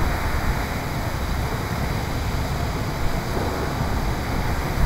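Steady rushing noise of water gushing from a sheared fire hydrant, with a low rumble underneath.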